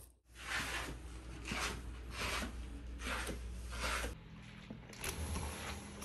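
Slippered footsteps going down wooden stairs, about five steps evenly spaced, with the rustle of a fleece robe. A short scrape follows near the end as a sliding window is handled.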